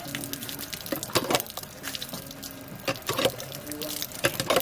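Cast-iron hand pitcher pump worked by its lever, water gushing from the spout and splashing onto a brick basin. Sharper noises come every second or so as the handle is stroked.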